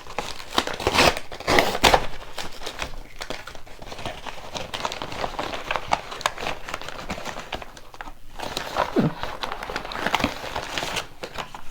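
Packaging being crinkled and rustled by hand as a package is opened and handled, with irregular crackles throughout.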